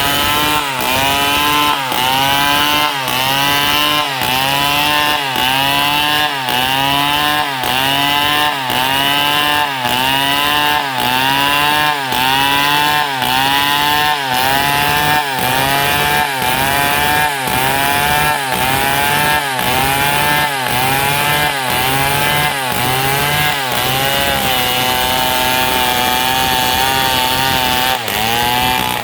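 Stihl MS 070 single-cylinder two-stroke chainsaw cutting through a palm trunk. The engine pitch dips under load and recovers in a steady rhythm a little over once a second, then holds level for the last few seconds.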